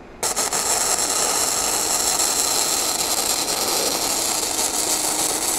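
YesWelder DP200 MIG welder running .035" gasless flux-core wire, the arc sizzling steadily from about a quarter second in as a bead is laid. The voltage is trimmed up 5 over the synergic setting, so the arc is running hotter.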